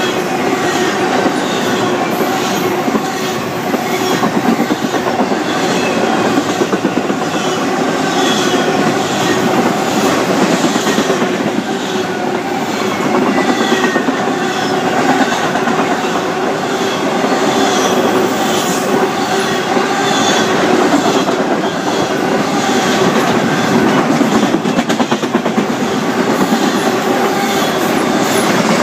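Fast BNSF intermodal freight train of trailer-on-flatcar cars passing close by. It gives a loud, steady rumble with a rhythmic clickety-clack of wheels over rail joints, and a steady tone runs under the clatter.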